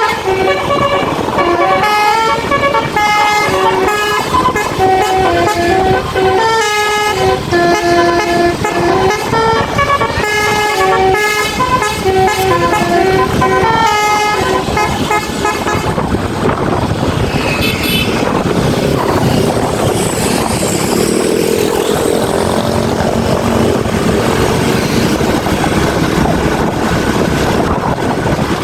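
A bus's basuri musical horn playing a quick melody of stepped notes for roughly the first half. It then stops about halfway through, leaving the vehicle and road noise running on.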